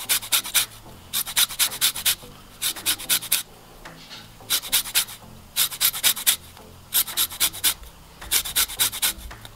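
Lemon rind being zested on a fine stainless steel hand grater: quick runs of rasping strokes, a handful at a time, with short pauses between the runs.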